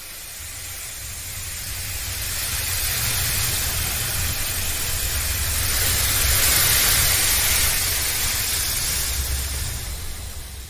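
A long rushing hiss with a low rumble beneath it. It swells steadily to its loudest a little past the middle, then fades out near the end.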